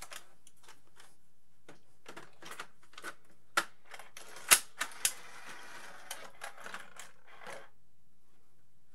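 VHD video disc player's loading mechanism, cover off: a string of clicks and clacks as the disc cartridge is pushed into the front slot, the loudest about four and a half seconds in, then a few seconds of mechanical whirring and clatter as the player pulls the disc out of the cartridge onto the turntable.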